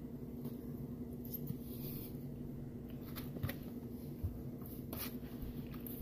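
Metal serving spoon scraping and clicking against a glass baking dish while scooping out taco bake, a few soft clicks among quiet scraping, over a steady low hum.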